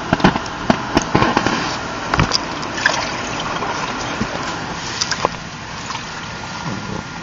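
Baby splashing in the water of an inflatable paddling pool: a quick run of sharp splashes and slaps in the first three seconds, then a few more about five seconds in.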